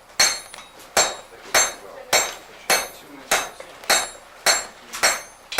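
Blacksmith's hammer striking hot iron on an anvil in a steady rhythm, a little under two blows a second, each blow ringing.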